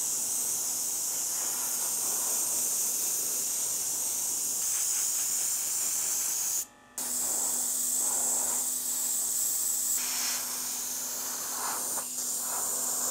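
Airbrush spraying black acrylic-polyurethane primer: a steady high hiss of air and paint, with a brief gap about seven seconds in.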